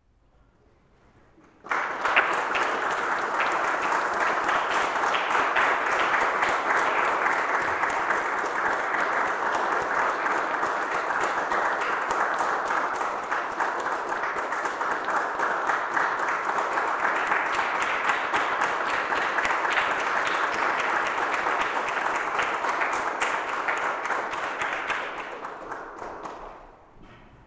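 Audience applauding: it starts suddenly about two seconds in, holds steady for more than twenty seconds, and dies away near the end.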